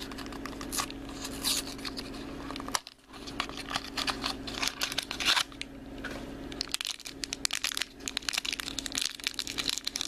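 Thin foil blind-bag wrapper being crinkled and torn open by hand, an irregular run of crackles that comes in spurts and is densest in the last few seconds.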